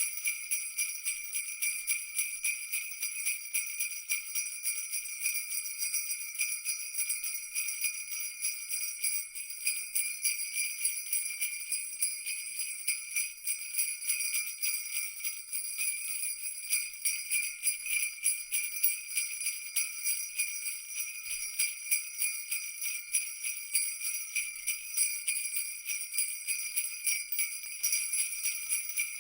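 Sleigh-type jingle bells shaken steadily and continuously, a dense high-pitched jingling with no pause.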